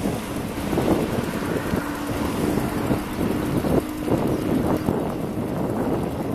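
Wind buffeting the microphone and tyre noise from an e-bike riding at about 20 km/h, with a faint steady hum through the middle from the 250 W rear hub motor pulling around 500 watts.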